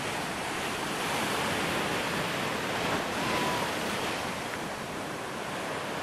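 Sea waves breaking and washing up against a sloping stone seawall: a steady surf wash and hiss.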